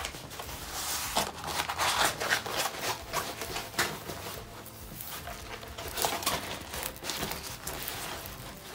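Plastic wrapping and a rolled diamond painting canvas being handled and unwrapped: irregular crinkling and rustling with sharp crackles.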